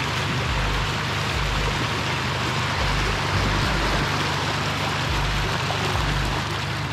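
River water rushing and splashing over a concrete causeway as a 4WD drives through it, a steady loud wash.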